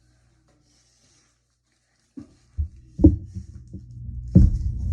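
Near silence for about two seconds, then a low rumble with two heavy dull thumps, about three seconds and four and a half seconds in.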